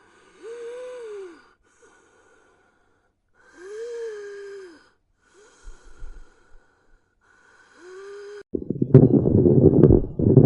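Wheezes heard through a stethoscope: three breaths each carry a musical whistling tone that rises and falls in pitch, alternating with quieter breaths without the tone. This points to narrowed airways, as in asthma. About eight and a half seconds in, a much louder rough, rumbling noise takes over.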